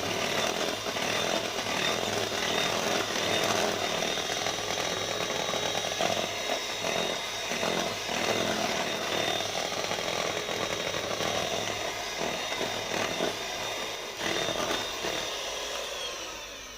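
Electric hand mixer running steadily, its beaters churning through thick plum cake batter as the dry flour mixture is worked in. The motor stops near the end.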